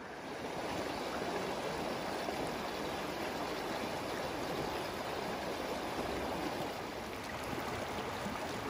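Shallow rocky river running over stones: a steady, even rush of flowing water.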